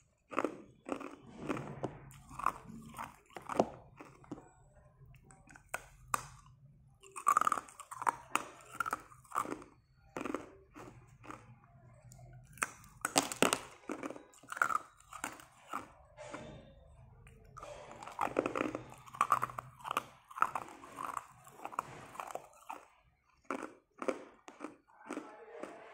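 Hard ice cube sticks being bitten and chewed, a long run of sharp, irregular crunches. The loudest crunch comes about halfway through.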